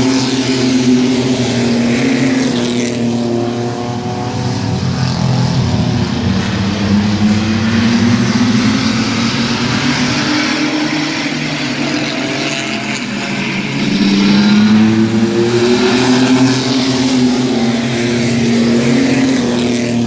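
Pack of mini truck race trucks lapping the oval, their engines rising and falling in pitch as they accelerate off the corners and pass. The sound swells loudest about 14 seconds in as the field goes by close.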